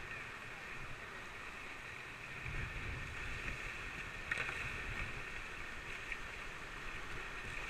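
Steady rushing of river whitewater from a rapid, with a low rumble on the microphone that swells from about two and a half seconds in and a faint knock about four seconds in.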